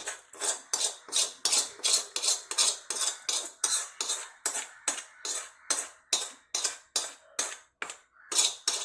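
A spoon scraping against a cooking pot in quick, regular strokes, about three a second, as fried cashews and raisins are scooped and spread over the biryani rice; the strokes pause briefly near the end.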